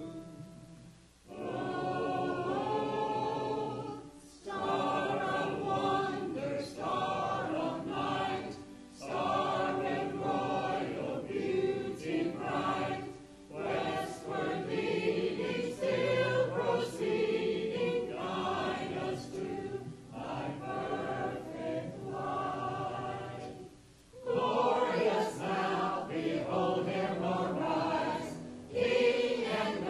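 Mixed church choir of men's and women's voices singing, phrase by phrase, with brief pauses between the phrases.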